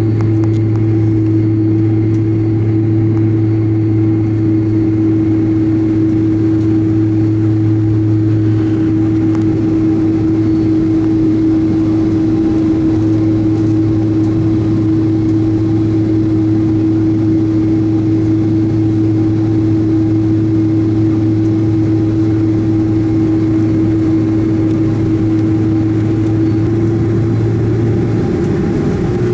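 Steady engine noise heard inside the cabin of a Boeing 767-300ER, seated just ahead of its GE CF6 turbofan: a constant hum with a steady whine. The pitch shifts slightly near the end.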